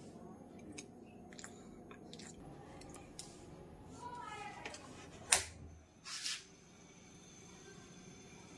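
Gas stove burner being lit under a pan of water: one sharp click of the igniter about five seconds in, followed by a short hiss as the gas catches, among a few small clicks and knocks of handling.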